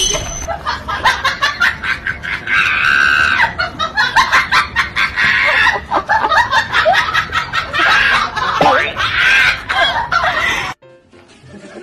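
A person laughing hard in a rapid, high-pitched cackle that cuts off suddenly near the end.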